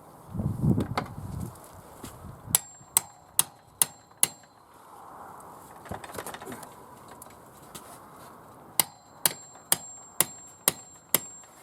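Hammer blows on metal, likely driving a bar to force off a door hinge whose screws are seized. The blows come in two runs of five and six sharp strikes, a bit over two a second, each with a high metallic ring. A dull low thump comes just before them.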